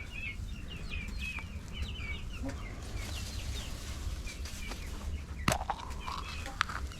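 Domestic hens clucking and chirping softly in the coop, many short calls overlapping. A sharp knock about five and a half seconds in, and a lighter click shortly after.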